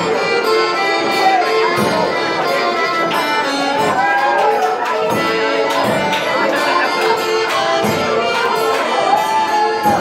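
A live dance band playing lively traditional-style dance music with a steady beat.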